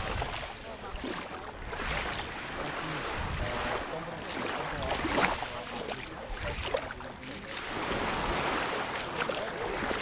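Small waves washing up onto a shingle beach and running back over the pebbles, in a steady wash that swells and eases every few seconds.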